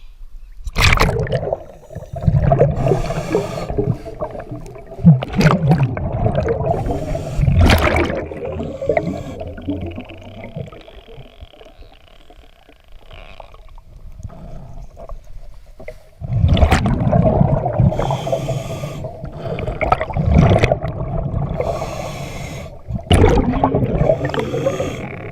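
Scuba diver breathing through a regulator underwater. Exhaled air rushes out as long, loud, gurgling bubble streams, with quieter stretches of inhalation hiss between them.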